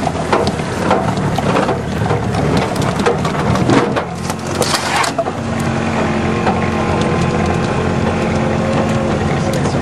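Golf cart driving over bumpy grass, its body rattling and knocking over the rough ground. About halfway through the knocking eases and a steady hum comes in.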